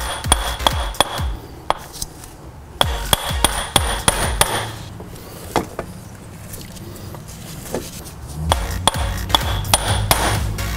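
A hammer striking the end of a new CV axle to drive it into the transmission until its snap ring seats. The blows come in three runs of quick strikes, a few a second, each with a metallic ring.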